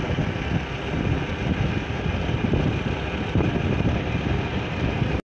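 Motorcycle running along an open road, the engine's steady drone mixed with wind buffeting the microphone; it cuts off abruptly near the end.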